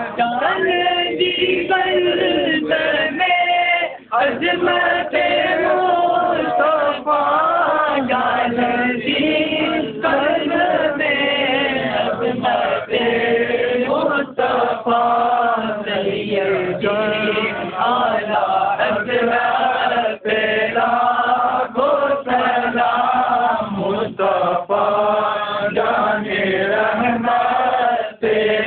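A group of men chanting a devotional Urdu hymn (naat) in praise of the Prophet Muhammad together, in a steady, continuous melody.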